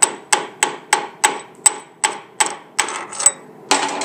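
Chipping hammer knocking the slag off a freshly laid 7018 stick-weld fillet bead on steel: sharp metal strikes, about three a second, each with a short ring, and a longer scraping stroke near the end.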